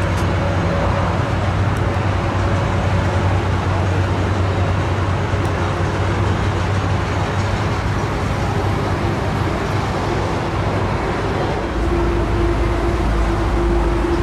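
Steady engine drone of an aircraft tow tractor pulling a widebody airliner, with a low hum throughout. About twelve seconds in, a deeper rumble and a steady mid-pitched tone grow louder as the tug comes closer.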